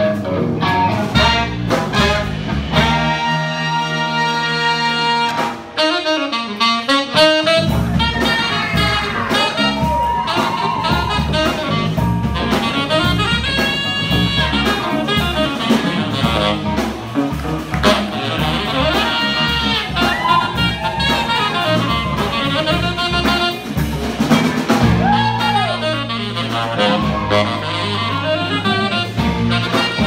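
Live jazz band of saxophones, trumpet, keyboard, electric guitar and drums playing an instrumental tune. A few seconds in the horns hold a sustained chord, then a saxophone carries a wavering melodic line over the rhythm section.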